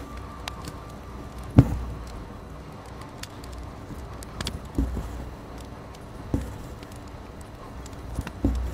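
Hand embroidery on fabric stretched drum-tight in a hoop: the needle punching through and floss being pulled, giving about five soft thumps with a slight click, the loudest about one and a half seconds in.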